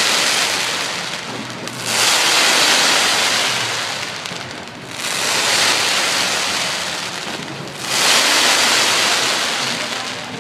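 Crackling aerial fireworks: a dense rain-like fizz of crackling stars coming in waves, one starting about every three seconds and fading over a couple of seconds.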